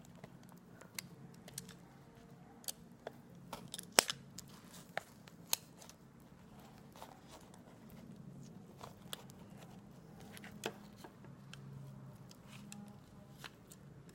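Close-up mouth sounds of eating aloe vera: scattered sticky, wet clicks and smacks, the loudest about four seconds in.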